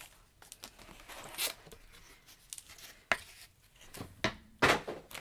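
Paper and cardboard packaging being handled: a card and printed sheets rustling and sliding in a cardboard box, with a few sharp clicks and crinkles, the loudest about three and four and a half seconds in.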